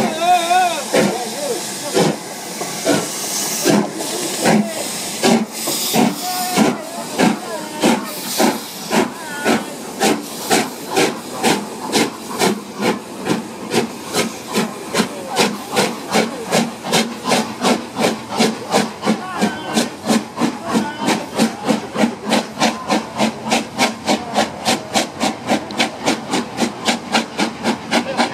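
LMS Stanier 8F steam locomotive 48151 pulling away with its train: sharp exhaust chuffs that come faster and faster as it gathers speed, about three a second by the end, over a hiss of steam.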